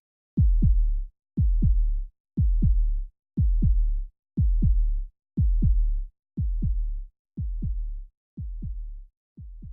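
Electronic intro music: a heartbeat-like pair of bass thumps about once a second, slowly fading away.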